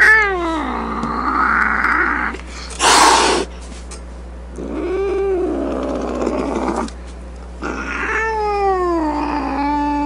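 An angry cat yowling in long drawn-out wails, one falling at the start, one rising and falling in the middle, one falling again near the end. A short, loud hiss cuts in about three seconds in, and a brief hiss comes just before the last wail.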